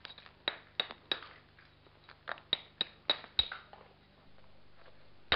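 Soft limestone hammerstone striking the edge of an obsidian biface, percussion flaking it thin: a string of about eight sharp, glassy clicks with a short high ring, bunched in the first three and a half seconds.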